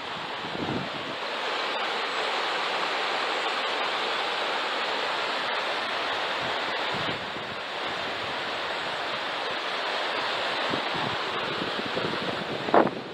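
Steady rushing of a shallow river running over rocks, an even noise that grows louder about a second and a half in. Near the end, two short knocks, the loudest sounds.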